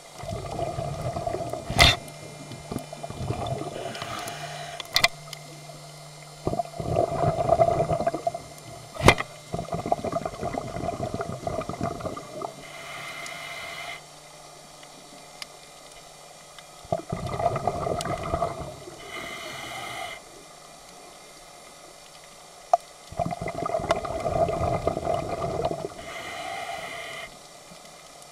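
Scuba diver breathing through a regulator underwater. Bubbling exhalations of a few seconds each are each followed by a shorter, higher hiss of inhalation, about three breaths, with a few sharp clicks in the first ten seconds.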